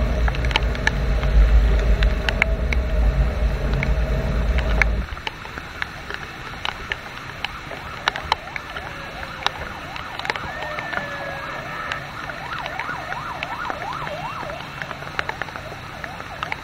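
Traffic on a wet road in the rain. A heavy low rumble cuts off suddenly about five seconds in, leaving quieter road noise with scattered sharp ticks. In the middle a siren yelps in fast rising-and-falling sweeps for a few seconds.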